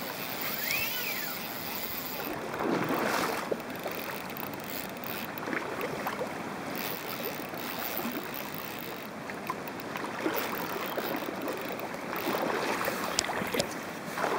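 River water rushing steadily over a gravel bed, with a few faint ticks.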